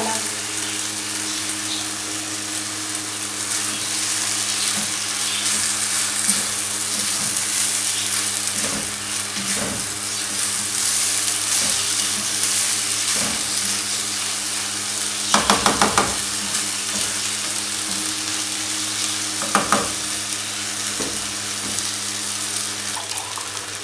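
Soaked basmati rice and spices sizzling in hot oil in a kadai as they are stirred, a steady hiss over a low hum. A quick run of spoon knocks against the pan comes about two-thirds of the way through, and a shorter one a few seconds later.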